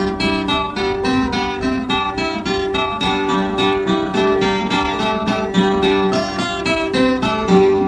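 Acoustic guitar music, notes plucked in a quick, steady rhythm.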